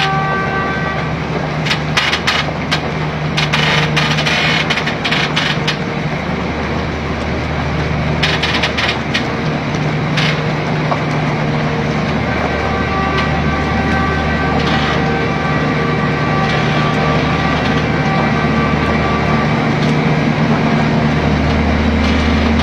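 Heavy multi-axle bridge girder transporter running as it creeps along under its load: a steady low engine drone with a thin high whine that comes and goes, and bursts of crackling a few seconds in and again about eight seconds in.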